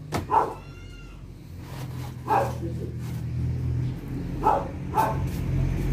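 A pet's calls: one high, drawn-out whine about half a second in, then several short yelps spread through the rest, over a steady low hum.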